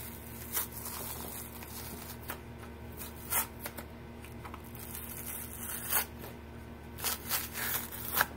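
Glued felt pad being peeled off the bottom of a lamp base: scattered short ripping sounds as the adhesive lets go, coming more often in the last couple of seconds.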